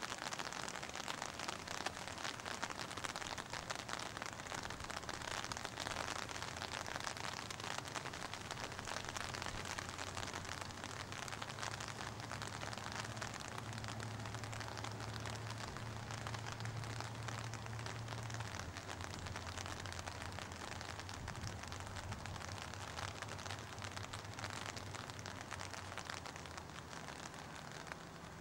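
Rain falling in large drops, a steady dense spatter of many small ticks. A faint low hum sits under it for a while in the middle.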